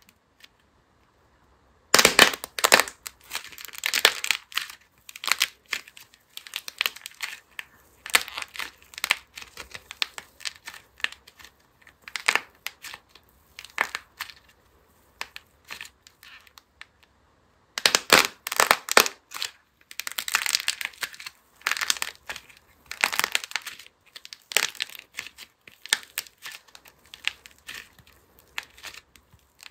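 Soft clay squeezed, kneaded and pulled apart in the hands, cracking and crinkling in bursts with short pauses. It starts about two seconds in, and the loudest bursts come at the start and again about two-thirds of the way through.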